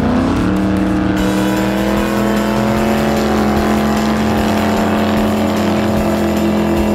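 Racing jet boat engine running at high, steady revs. The pitch drops briefly at the start, then holds level.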